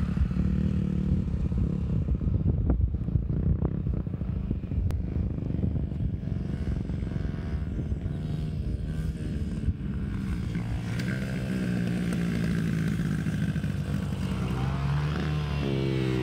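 Dirt bike engines running, with a revving engine sweeping up and down in pitch near the end as a small dirt bike rides close by.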